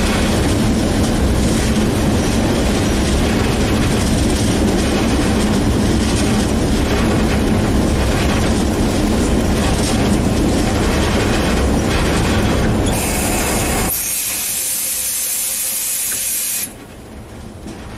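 Diesel locomotive running along the track, heard from the cab, with a steady engine rumble and wheels clattering over rail joints. About thirteen seconds in, a loud hiss starts, the low rumble cuts out a second later, and the hiss stops suddenly near the end.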